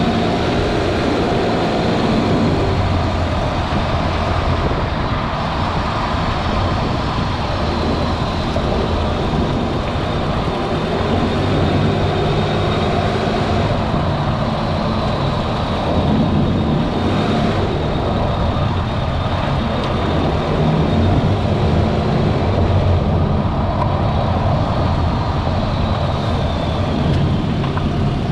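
Toyota Vanguard 240S's 2.4-litre 2AZ-FE four-cylinder petrol engine running steadily, with a faint high whine throughout.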